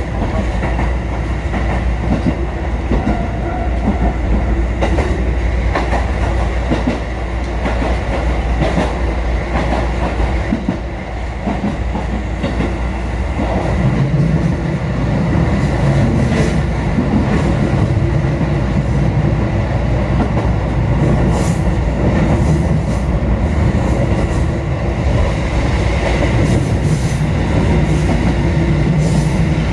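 Kotoden 1080- and 1100-series four-car electric train running along the line, heard from inside the front car: a steady running rumble with wheels clicking over rail joints, and a low hum that strengthens about halfway through.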